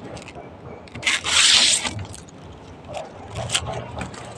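Bolo knife scraping along coconut leaf midribs to strip them clean for a tingting broom. One long scrape comes about a second in, and a few short scrapes come near the end.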